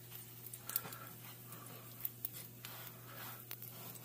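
Faint handling of baguette halves on a buttered griddle: soft scuffing and a few light taps as a gloved hand presses and slides the bread, over a steady low hum.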